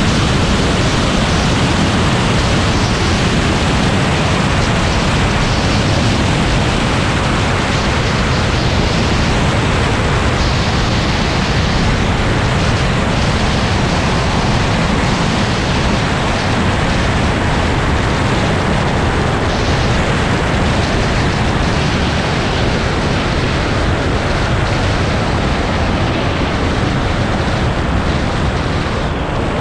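Aeroprakt A22 light aircraft heard from a camera under its wing during its landing roll on the runway: a steady rush of wind noise on the microphone mixed with the engine and propeller.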